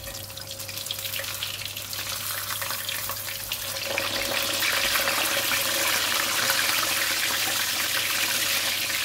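Whole black pomfret deep-frying in hot oil in a stainless steel wok: a steady sizzle with fine crackling. It grows louder about four seconds in, as the fish is flipped over with a turner and ladle.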